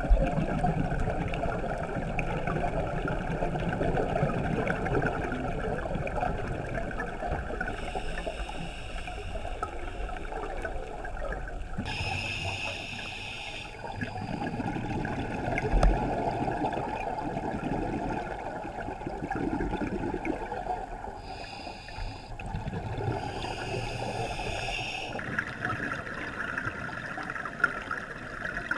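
Underwater noise of a scuba dive, heard through the camera housing: a steady low rumble and gurgle of exhaled bubbles, broken several times by a hissing breath drawn through the regulator.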